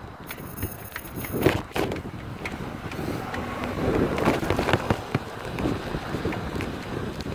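Wind blowing across a phone microphone, with rustling and scattered knocks as the phone is moved around.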